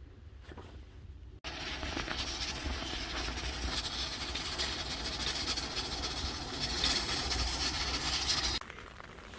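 Steady hiss of rain with a fine patter of drops, cutting in sharply about a second and a half in and stopping abruptly near the end.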